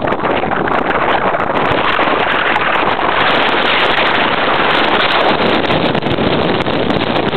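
Car driving over a rough dirt road, with loud wind noise on the microphone over the road rumble.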